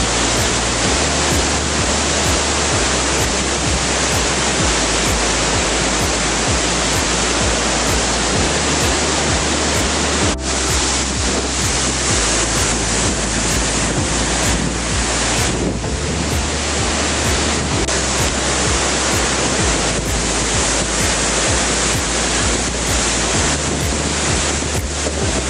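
Steady loud rush of a waterfall and fast water over rocks, with background music laid over it, its bass notes changing every second or so.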